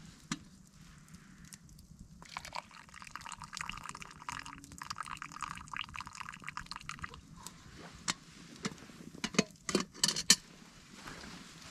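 Freshly boiled water poured from a camping kettle into a mug for tea: a steady splashing pour lasting about five seconds. Near the end come a few sharp clinks and knocks, the loudest sounds.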